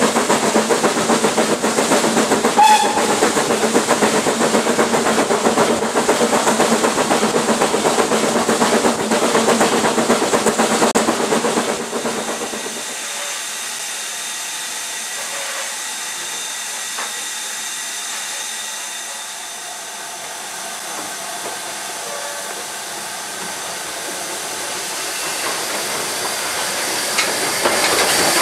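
A steam-hauled train running, heard from a carriage just behind the locomotive: a loud, steady rattle of wheels and train. It cuts off about twelve seconds in to a quieter, steady hiss of steam, which grows louder near the end as Class USA 0-6-0 tank engine No. 30075 moves along the platform with its coaches.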